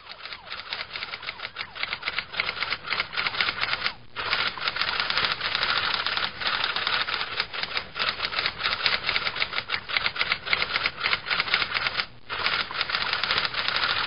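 Typewriter sound effect: a fast, continuous run of key clicks, with two brief pauses about four and twelve seconds in.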